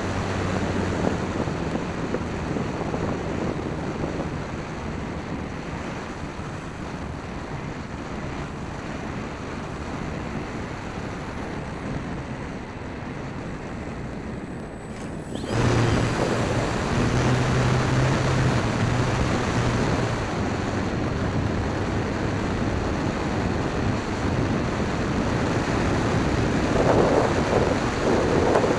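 Wind rushing over the microphone with the low drone of a Dynam Waco RC biplane's electric motor and propeller. About halfway through, the sound suddenly gets louder and the low hum grows stronger.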